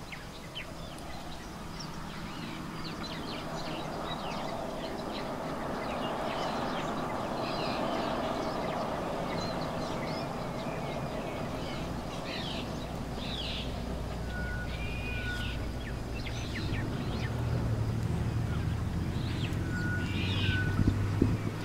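Wild birds calling: scattered short chirps throughout, and a brief high whistle repeated a few times in the second half. Underneath runs a steady low rumble that grows louder near the end.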